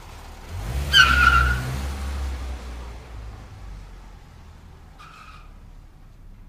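Car sound effect: an engine rumble swells with a short tyre screech as the car pulls away, then fades over several seconds; a fainter screech follows near the end.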